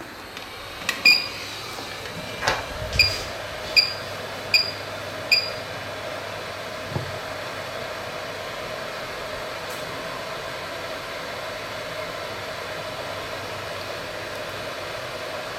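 Hot air rework gun blowing steadily while a clock crystal is desoldered from a phone logic board. There are five short electronic beeps and a click in the first few seconds, then the air flow runs on evenly.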